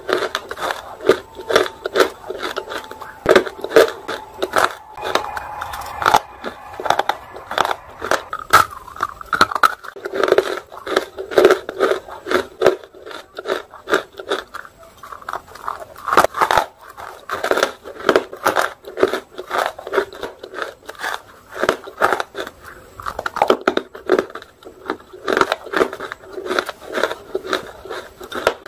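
Dry roasted nakumat pieces being bitten and chewed: many sharp crunches in quick succession, with a few louder bites about ten and sixteen seconds in.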